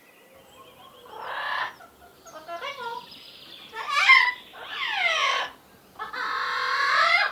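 Parrot squawking: a string of harsh calls, some sweeping down in pitch, ending in a long screech of about a second.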